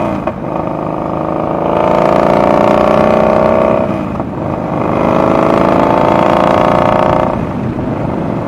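Yamaha Bolt's 942 cc air-cooled V-twin through a homemade slip-on exhaust with no baffle, loud, with very little back pressure. The motorcycle accelerates through the gears: the pitch climbs, drops at a shift about four seconds in, climbs again, then falls to a lower, steadier note as the throttle eases near the end.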